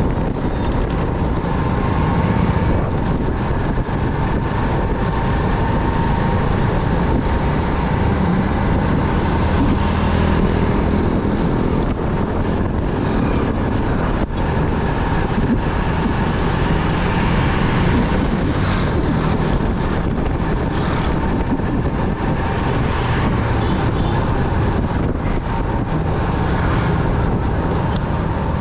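Motorcycle riding on the road: steady engine, tyre and wind noise with no sudden events.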